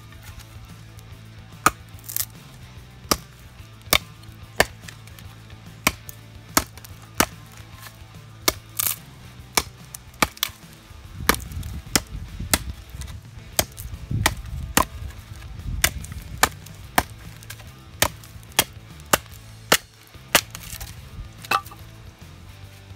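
A fixed-blade bushcraft knife with a thick D2 steel blade chopping into a 5 × 3 cm wooden batten: a long run of sharp chops, roughly two a second, starting about a second and a half in and stopping shortly before the end.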